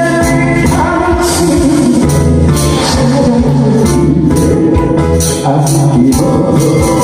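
A man singing a Korean trot song into a microphone over amplified backing music with a steady beat.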